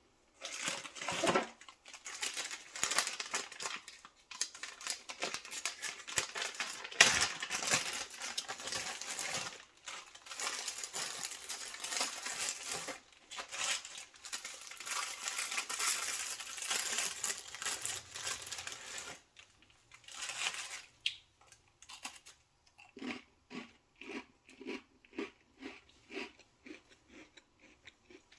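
Food packaging crinkling and tearing in dense, crackly handling for about nineteen seconds. After a short pause comes a run of short, evenly spaced sounds, about two a second.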